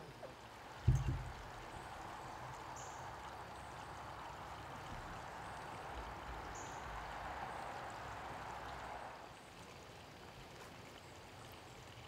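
A steady rushing noise that swells, then drops away about nine seconds in, with a short low thump about a second in and two faint high bird chirps.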